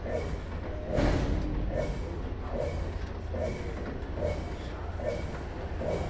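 Consul Facilite 11 kg top-loading washing machine agitating a load of work clothes: water and laundry swish back and forth in an even rhythm, a little more than once a second, over a low motor hum. One louder clunk about a second in.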